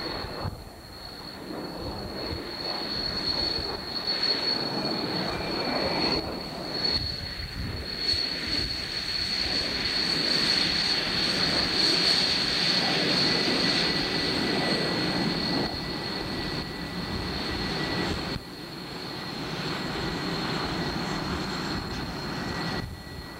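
T-38 Talon jet trainers taxiing, their twin turbojets running with a steady high whine over a rushing rumble. It is loudest in the middle as one passes close.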